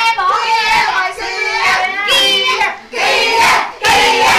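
A group of young people shouting, cheering and singing along in loud, high voices, breaking into short chanted bursts over the second half.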